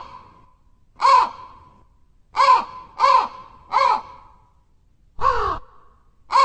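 A crow cawing: a loose series of about six short, harsh caws, spaced between half a second and a second and a half apart.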